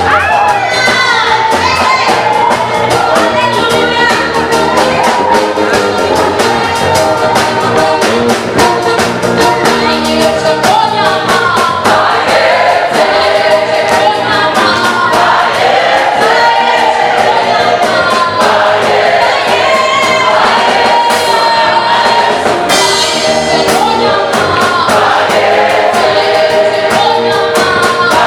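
A choir sings an African gospel song in harmony over a band with a steady beat.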